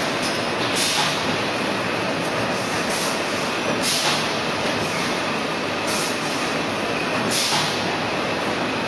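Full-automatic core veneer composer running: a steady machinery din with five short hissing bursts, one to two seconds apart.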